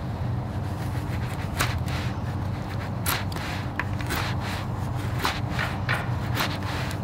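Straight carving knife slicing shavings off a green-wood spoon blank: a series of short, sharp cuts, about eight, each a quick scrape.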